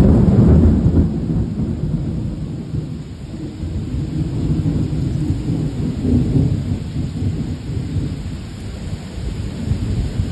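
Thunder breaks suddenly at the start and rolls on as a long low rumble that swells and fades for about ten seconds, over steady heavy rain.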